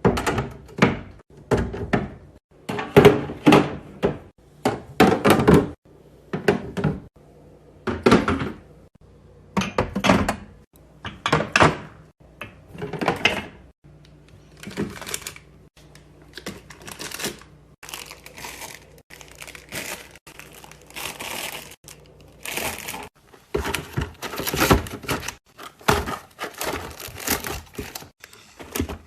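Household items being handled and set into plastic storage containers: a long irregular run of thunks and clicks with crinkling packaging.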